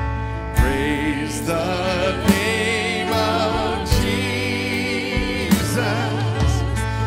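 Live worship band playing a slow song on keyboard and drum kit, with singers holding notes with vibrato. A drum beat lands about every second and a half.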